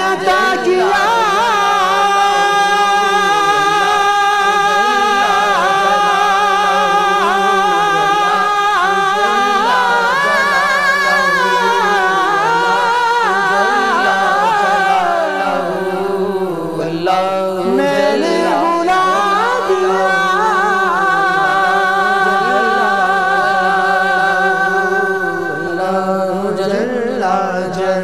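Male voices singing an Islamic hamd, a devotional song in praise of God, in long held, ornamented notes over a steady low drone.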